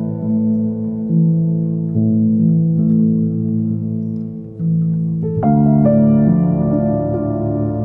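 Background instrumental music: sustained chords changing about once a second, becoming fuller and louder about five seconds in.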